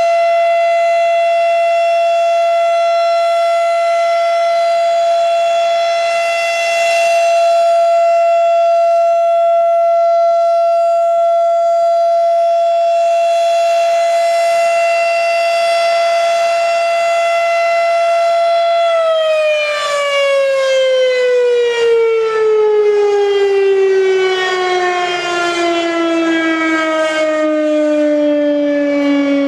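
Federal Signal RSH-10A Thunderbeam rotating siren sounding the Full Alert steady tone, one held high pitch with many overtones. About two-thirds of the way through the tone ends and the pitch slides steadily down as the siren winds down.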